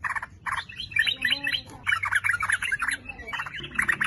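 Yellow-vented bulbul (trucukan) singing: a few separate notes, then from about a second in a fast, bubbling run of chattering notes that goes on with short breaks.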